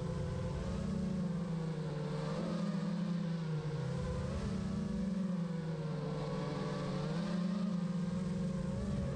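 FPV drone's brushless motors whining steadily, their buzzing pitch dipping and rising a few times as the throttle changes.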